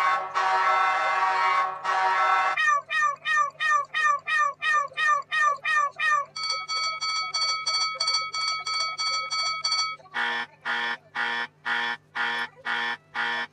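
A string of different electronic sound effects, one after another. First comes a held buzzing tone for about two and a half seconds, then a fast run of short falling chirps, then a steady rapid beeping like an alarm clock, and from about ten seconds in, louder beeps about twice a second. A low steady hum runs under all of it.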